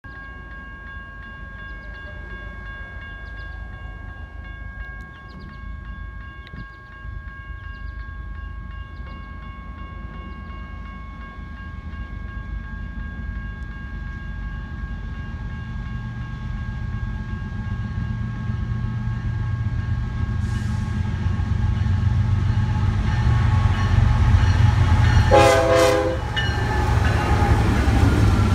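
BNSF diesel freight train approaching and arriving. Its horn sounds as a long steady chord in the distance while the locomotives' rumble grows steadily louder, then comes a short, loud horn blast close by near the end as the lead locomotive reaches the listener.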